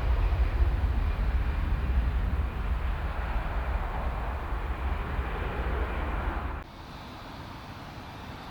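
Jet airliner on takeoff: a deep engine rumble that slowly fades as the aircraft moves away, then cuts off abruptly about six and a half seconds in, leaving a quiet steady background.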